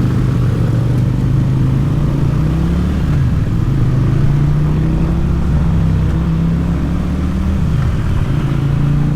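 Motorcycle engine running under way, a steady drone whose pitch climbs slowly and drops back twice, about three seconds in and again near the end.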